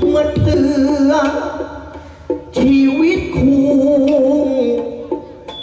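Likay theatre music: a long held, wavering melody line with rich overtones, pausing briefly in the middle, over a few low drum strokes.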